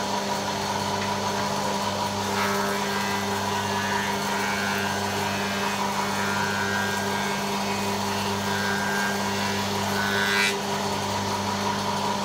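Spindle moulder and its power feeder running with a steady motor hum, feeding ash balusters past the cutter; a higher cutting noise rides on top from about two seconds in until about ten and a half seconds, while a stick is being machined.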